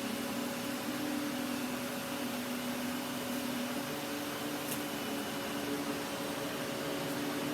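Kenmore Progressive All Floors canister vacuum running steadily with its suction control turned all the way up, sucking up sawdust.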